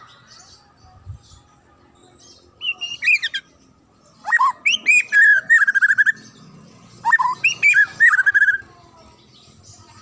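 White-rumped shama singing: three loud phrases of clear, sliding whistles and quick trills, a second or so apart.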